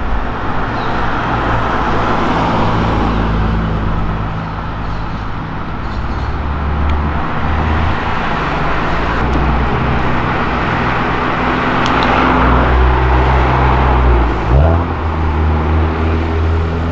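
Street traffic: car engines and tyre noise of cars driving past at low speed, with a quick engine rev near the end.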